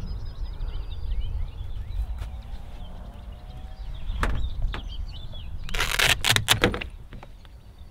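Birds chirping and trilling over a steady low rumble, with a sharp click about four seconds in and a cluster of loud knocks and rustles about six seconds in.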